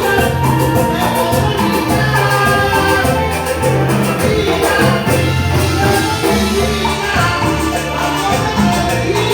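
A Latin dance band playing live: a bass line under melody instruments, with percussion keeping a steady, busy beat.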